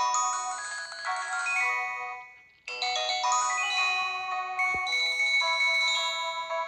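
Corise KS728 mobile phone playing a ringtone: a quick melody with several notes sounding at once. It fades out about two seconds in, and after a brief silence a ringtone melody starts again abruptly.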